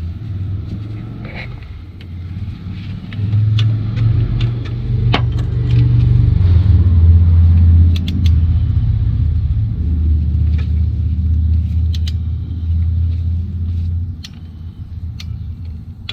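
A loud low rumble that swells a few seconds in and fades near the end, with scattered sharp clicks of a torque wrench ratcheting on a timing chain tensioner bolt.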